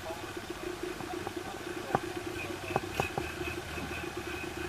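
Boat engine running steadily with a fast-pulsing drone, broken by several sharp knocks.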